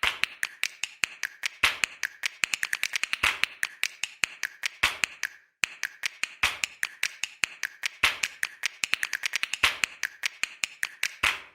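Rapid, irregular clicking or tapping, several sharp clicks a second, with a brief pause about halfway through.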